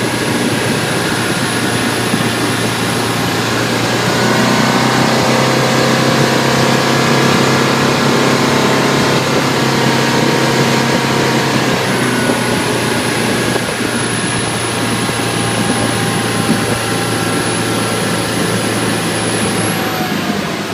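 2012 Bayliner 175BR's engine running steadily with the engine hatch closed, a thin high-pitched squeal riding over it. The squeal stops about three seconds in, comes back about twelve seconds in, and rises slightly in pitch near the end.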